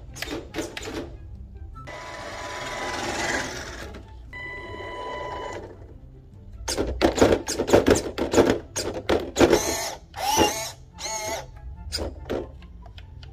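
Redcat Racing 1959 Chevy Impala RC lowrider's servos and brushed electric motor whirring as it drives and hops its front end. A loud run of sharp knocks comes in the second half, with music playing alongside.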